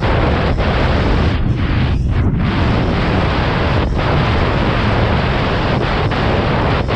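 Wind buffeting the microphone, a loud steady rush with a heavy low rumble and a few brief dropouts, typical of a camera riding along on a moving bicycle.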